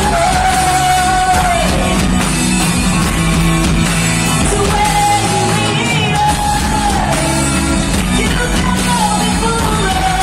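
Background music: a song with a singing voice holding long notes over instrumental accompaniment.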